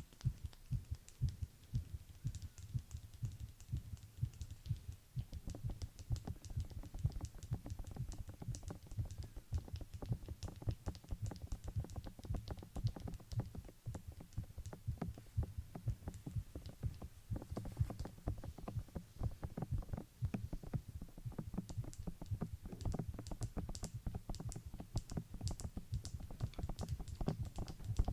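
Fast, irregular clicking and tapping, many strokes a second, over a low thumping bed.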